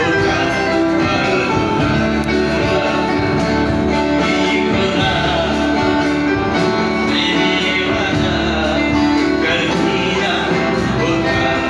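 Live gospel worship music: a guitar played along with singing, at a steady level throughout.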